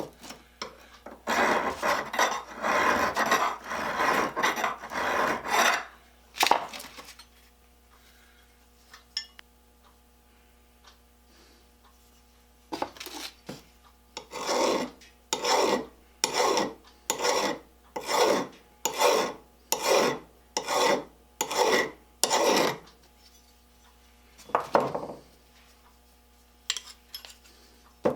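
A hand file scraping over the steel of an antique adjustable wrench, dressing down burrs and dings. It starts with a quick flurry of short strokes, pauses, then settles into a steady run of about a dozen even strokes a little under a second apart, with a few more near the end.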